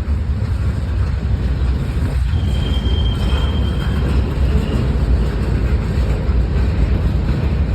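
Freight train cars rolling past with a steady low rumble from the wheels on the rails, and a faint thin squeal for a couple of seconds midway.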